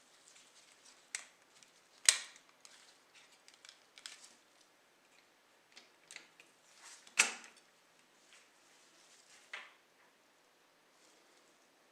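Light clicks and taps of small hard parts being handled, with two sharper clacks about two seconds and seven seconds in, and a smaller one near the end.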